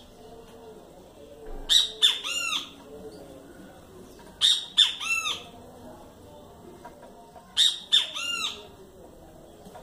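Chalk-browed mockingbird calling in three bursts about three seconds apart. Each burst is a couple of harsh notes followed by a quick run of four or so arched notes.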